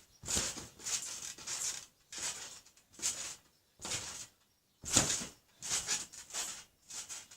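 Repeated bouncing on a trampoline: a rustling, springy burst with each bounce, roughly one a second, and a heavier landing about five seconds in.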